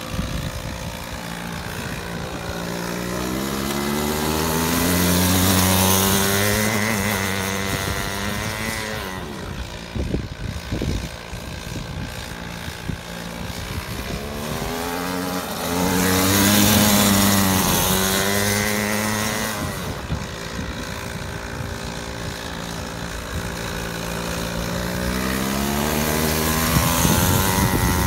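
Go-kart engine revving up and down as the kart drifts in circles, its pitch rising and falling with the throttle. It grows louder about five seconds in and again about seventeen seconds in.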